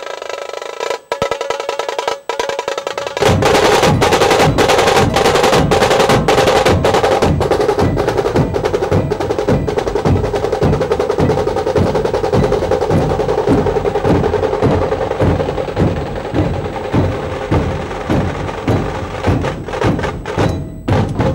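Maharashtrian dhol-tasha band drumming: rapid stick rolls over heavy, evenly paced bass beats. It comes in at full loudness about three seconds in, after a quieter opening that cuts out twice.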